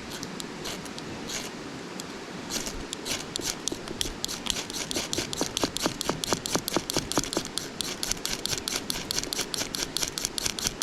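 A fire-starting striker scraped rapidly over and over, about four to five strokes a second. The strokes come sparsely at first, then in a long fast run from a couple of seconds in. It is throwing sparks onto tinder that does not catch.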